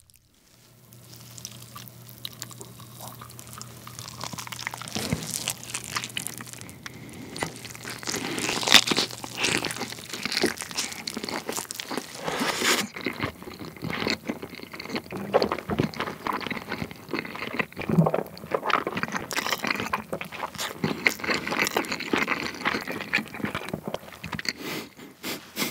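Close-miked biting and chewing of a sauce-glazed fried chicken drumstick, with wet, sticky mouth sounds and many irregular small clicks as the meat is torn from the bone.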